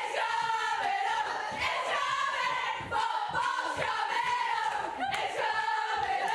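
A large group of women singing and chanting loudly together in celebration, in repeated short phrases with shouts mixed in.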